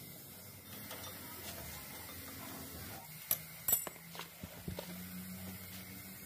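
Metal brake pads and their clips clicking and clinking against the caliper bracket as they are worked out by hand: a few sharp clicks about three seconds in, then some lighter ones.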